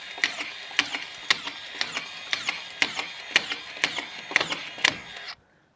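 DeWalt DCF620 18V brushless collated drywall screw gun running steadily with its trigger locked on, clicking as each collated screw is fed and driven, about two screws a second. It stops abruptly near the end.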